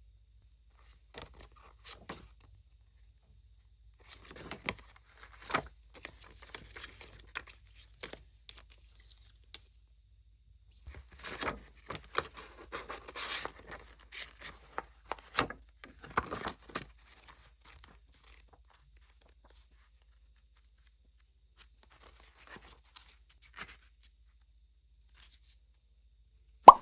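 Packaging being torn open and handled during an unboxing: bursts of tearing and rustling with sharp clicks, thinning out about two-thirds of the way through, then a loud sharp click at the very end.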